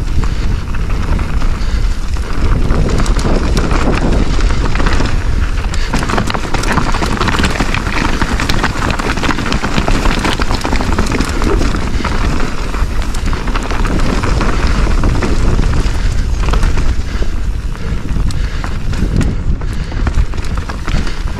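Mountain bike descending a downhill trail: tyres running over dirt and loose stones with constant clattering and rattling of the bike over rocks, under a steady rumble of wind buffeting the microphone.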